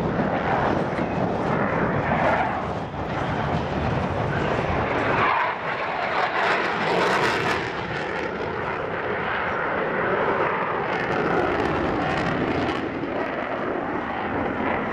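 Boeing F/A-18 Super Hornet's twin afterburning turbofan jet engines at high power as the fighter flies past and climbs: a loud, steady roaring rush. About five seconds in, the deep rumble drops away, leaving a higher rush and hiss.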